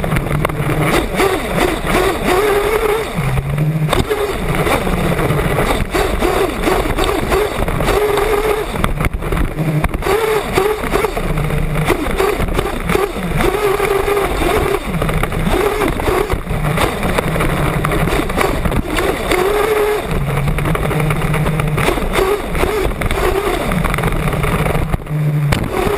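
1/8-scale off-road nitro buggy's small glow engine, heard from on board, revving up and down again and again as the buggy accelerates and brakes around the dirt track, with a steady rush of noise over it.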